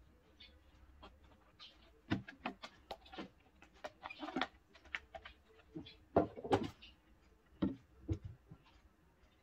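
Hard plastic parts of a rice dispenser (its lid and small clear plastic pieces) being handled and set down: a series of light clacks and knocks, loudest a little past six seconds in.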